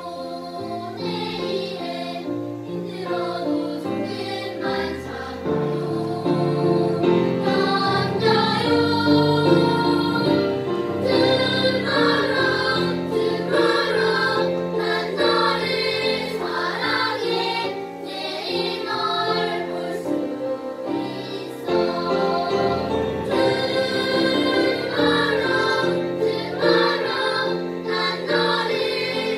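Children's choir singing in parts, accompanied by a grand piano. The singing grows louder about six seconds in.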